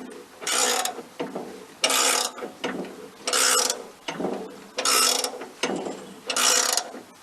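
Wood-Mizer sawmill's band-blade tensioner being worked tight with a ratcheting, mechanical stroke, five strokes about a second and a half apart with light clicks between.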